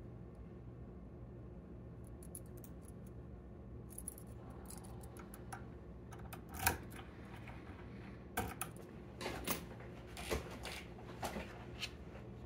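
Keys on a metal keyring jangling and clicking as a key is pushed into a lock cylinder held in a vise, then keys and metal tools handled. The sounds are a string of sharp metallic clicks and rattles, loudest about seven seconds in, over a faint steady hum.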